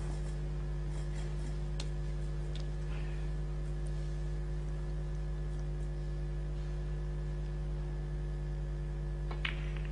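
Steady electrical hum on the broadcast audio, with a few faint clicks of snooker balls and one sharper click of a snooker shot near the end.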